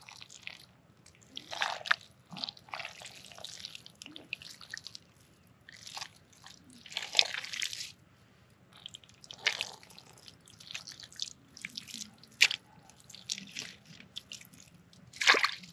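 Wet mud and water squelching and splashing in short, irregular bursts, with a sharp click about twelve seconds in and a louder burst near the end.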